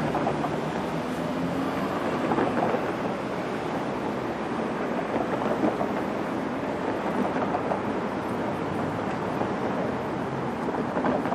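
City street traffic: cars driving through an intersection, a steady unbroken mix of engine and tyre noise.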